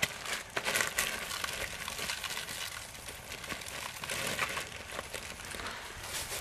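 Crinkling and scattered light clicks of dry potassium hydroxide being handled into a paper bowl.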